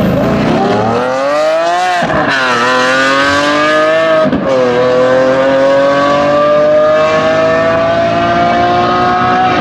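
Lamborghini Aventador SVJ Roadster's 6.5-litre V12 at full throttle from a drag-race launch, revs climbing fast with quick upshifts about 2 and 4 seconds in, then pulling steadily higher as the car runs away down the strip. The Bugatti Chiron Sport's quad-turbo W16 accelerates alongside.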